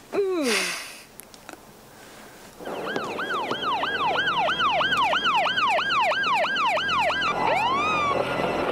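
A brief falling cry at the very start, then a police car siren wailing in fast rise-and-fall sweeps, about three a second, slowing to two longer sweeps near the end.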